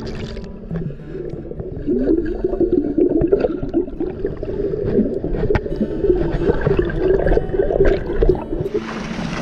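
Muffled underwater sound picked up by a submerged camera: gurgling and bubbling with wavering tones and small clicks. Near the end a steady rush of wind and water takes over.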